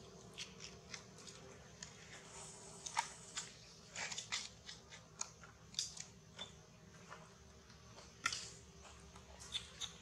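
Faint, irregular crackles and rustles of dry fallen leaves and dirt as a baby macaque shifts about and picks at the ground, a few sharp clicks a second with a low steady hum underneath.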